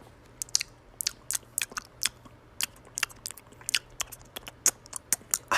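Chewing of something crunchy: irregular sharp crunches, several a second.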